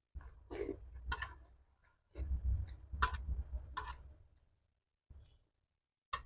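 Close-up mukbang eating sounds: wet chewing and mouth clicks over a low rumble, in two stretches of a second or two each, then two short bursts near the end.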